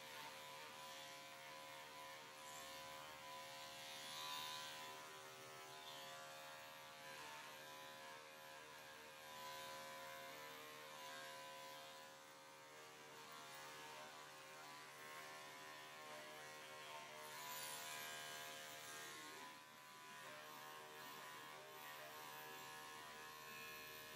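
Electric dog clippers running steadily with a faint, even hum while the blade shaves down a pelt-matted coat, the sound swelling a little now and then as the blade works through the mats.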